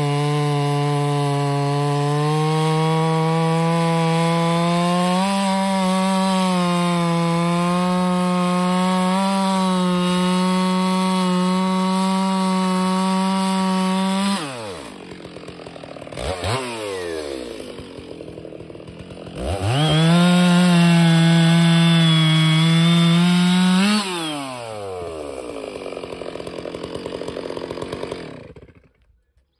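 Stihl 066 two-stroke chainsaw (about 92 cc) cutting through a large log at full throttle for about fourteen seconds. It then drops toward idle, is blipped once, and runs wide open again for about four seconds. Finally it falls back to idle and is switched off shortly before the end.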